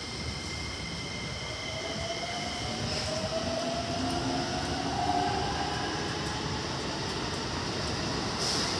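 Electric commuter train pulling out, its traction motors giving a whine that rises slowly in pitch as it gathers speed, over a steady rushing noise.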